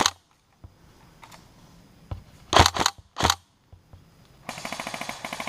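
Airsoft electric gun firing single shots, sharp close cracks at the start and then three more a little over halfway through. About 4.5 s in it switches to a long fast full-auto rattle with the whir of the gearbox motor.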